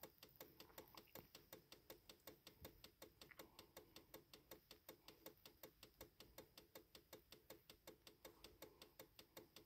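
Faint, rapid, regular ticking, about six ticks a second, in otherwise near silence.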